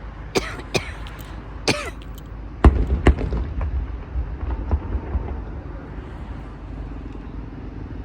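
Fireworks going off at a display: a few sharp cracks in the first two seconds, then two heavier booms about a third of the way in, over a steady low rumble. A cough-like sound comes about two seconds in.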